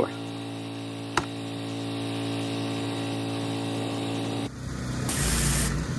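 Pressure washer engine running at a steady pitch, with a single click about a second in. Near the end the sound turns rougher, with a short burst of hissing spray.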